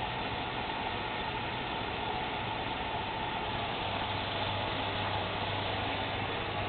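Bauknecht washing machine and mkm tumble dryer running together: a steady mechanical whir, with a low hum that grows a little stronger about four seconds in.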